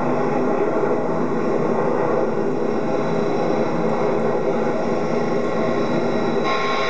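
Airbus A300B4's General Electric CF6-50 turbofan engines running at taxi power: a steady whine of many tones over a rushing hiss. Near the end a new higher tone joins in.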